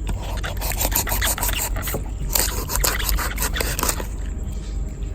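Knife sawing and scraping through the backbone of a raw whole chicken: a run of rapid, rasping cutting strokes that stops about four seconds in.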